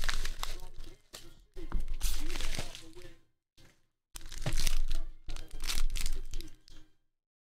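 Tape peeled off a padded bubble mailer and the mailer torn open, in two bursts of tearing and crinkling. About four seconds in, a clear plastic bag crinkles as a card holder is pulled out of it.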